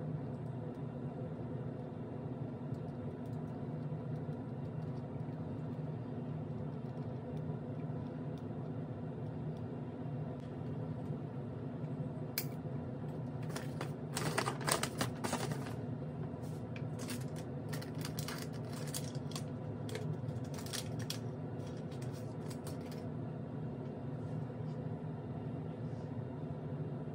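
Light plastic clicks and rustles from handling a rapid COVID antigen test kit (the small extraction tube, swab and packaging), with a louder spell of rustling about halfway through. A steady low hum runs underneath.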